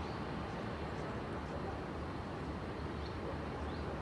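Steady outdoor ambience with a low rumble, and a few faint, short, high bird chirps.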